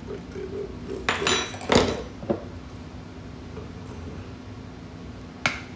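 A metal knife and spoon clinking against a plate and being set down on a countertop: a cluster of clatters about a second in, a smaller clink shortly after, and a single sharp knock near the end.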